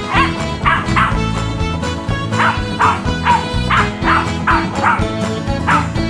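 Irish Terrier puppy yapping angrily at a remote-control toy truck: about a dozen short, high barks in quick runs, with a pause near the second mark. Background music plays underneath.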